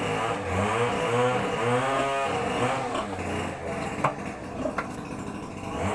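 An engine running nearby, its pitch rising and falling, with two sharp clicks about four and five seconds in.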